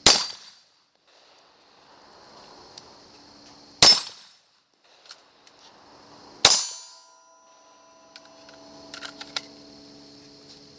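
Three gunshots a few seconds apart, each a sharp crack with a short decay. The third is followed by a ringing tone that lasts a few seconds.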